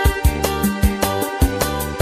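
Instrumental backing track of a Khmer song, with a steady drum beat under sustained melodic lines and no vocals.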